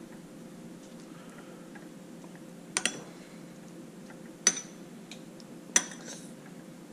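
Metal spoon clinking against a small glass bowl while eating: a quick double clink about three seconds in, then single clinks at about four and a half and six seconds, over a faint steady hum.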